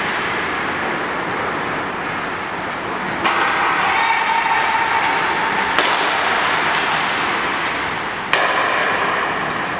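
Ice rink ambience during hockey practice drills: a steady wash of echoing rink noise that jumps louder about three seconds in and again past eight seconds, with a single sharp crack near the middle.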